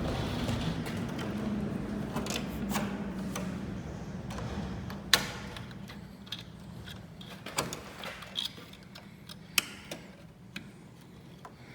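Scattered light clicks and knocks of an old wooden sash window being worked by hand as a spring sash balance is fitted into it, over a low steady hum that fades out during the first half.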